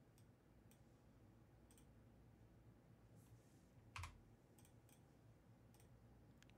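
Near silence: room tone with a few faint clicks, and one slightly louder click with a soft thud about four seconds in.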